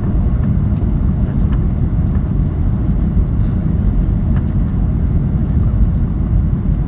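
Steady, loud rumble of airliner cabin noise from engines and airflow, heard from inside the passenger cabin during the landing.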